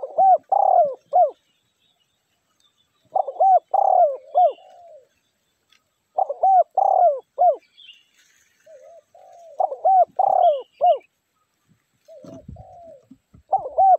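Spotted dove cooing, set out as a decoy to call in wild doves: a phrase of three or four looping coos, repeated about every three seconds.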